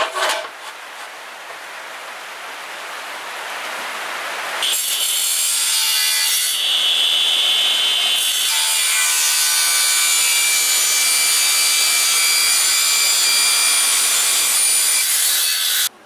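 Electric compound mitre saw with an aluminium-cutting blade starting up and cutting aluminium angle: a sudden start, a sound that builds over the first few seconds, then a louder, brighter cutting noise with steady high-pitched ringing that stops suddenly near the end.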